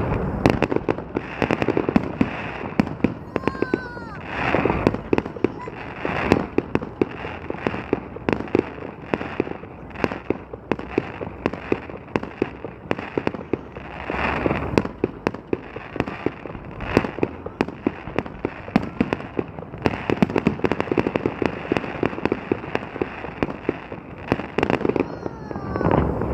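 Fireworks display: a dense run of bangs and crackling pops that keeps going throughout, with louder clusters of bursts every few seconds.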